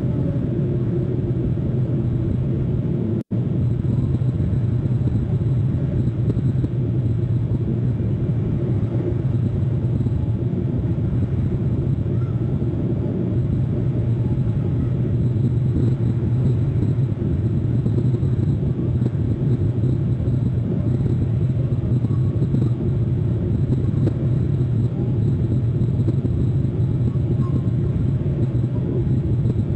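Steady low rumble of outdoor background noise on the nest-cam microphone, with a momentary dropout about three seconds in.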